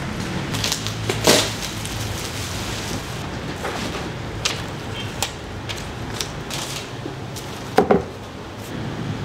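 Packaging being handled: a cardboard shoebox set down on bubble wrap, its lid opened and tissue paper pulled back from the sneaker. This gives scattered rustles, crinkles and knocks, the loudest about a second in and again near the end.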